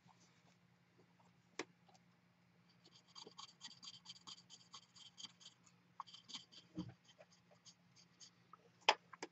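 Fine 3000-grit abrasive rubbed in quick short strokes over cured lacquer filling a chip on a porcelain bowl's rim: a faint, rapid scratching, about six strokes a second. A sharp click comes about a second and a half in and a louder knock near the end.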